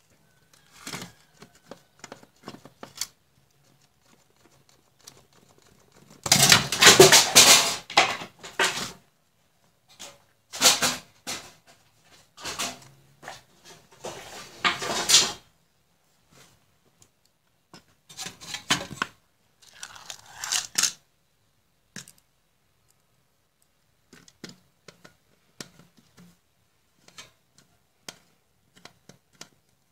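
Irregular rustling, scraping and clicking as an opened computer power supply's metal case and nearby tools are handled on a bench, in several loud bursts with scattered faint clicks between.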